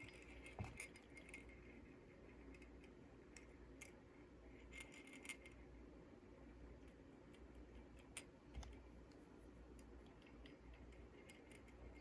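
Near silence, broken by scattered faint small clicks and light metallic clinks, a cluster of them about five seconds in, as of small metal parts being handled.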